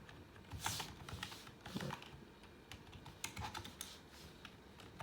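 Faint, irregular keystrokes on a computer keyboard, a scattering of light clicks.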